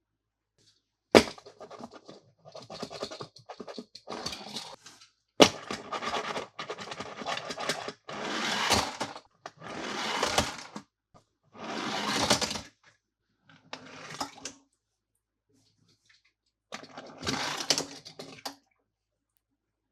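Handling noise from toys and their packaging: two sharp clicks, one about a second in and one about five seconds in, and a run of rustling, scraping bursts of one to two seconds each with short pauses between them.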